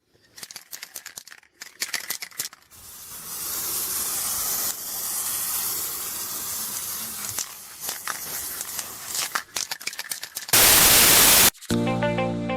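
Scattered clicks, then a steady hiss with more clicks. About ten and a half seconds in comes a loud, one-second burst of static-like noise that cuts off suddenly, and electronic music starts near the end.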